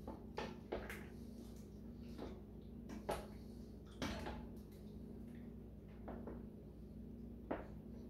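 A spoon knocking and clinking against the rim and sides of a stainless-steel stockpot of soup while it is stirred. There are about six sharp knocks, the loudest around three and four seconds in, over a steady low hum.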